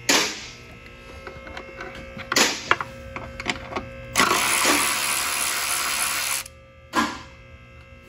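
Cordless electric ratchet whirring in short bursts as it backs out the intake bolts on a 3.6 Pentastar V6, with one longer run of about two seconds near the middle.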